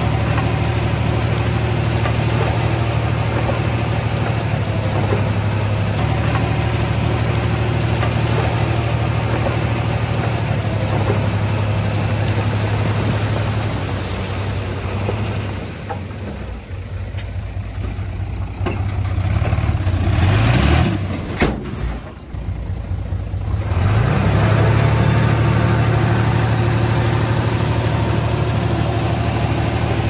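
Heavy diesel engine of earthmoving equipment running steadily at a low, even speed. Past the middle it falls away for several seconds, then rises in pitch, with a sharp click, before the steady running comes back.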